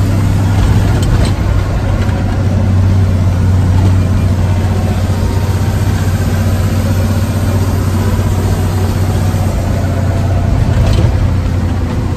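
Diesel truck engine, a Cummins 230, running steadily at cruising speed, heard from inside the cab with a strong, even low hum.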